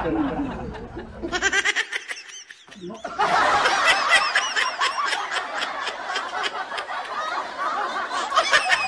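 Laughter sound effect: rapid high-pitched giggling in quick repeating pulses, starting about a second in, breaking off briefly around two to three seconds in, then running on.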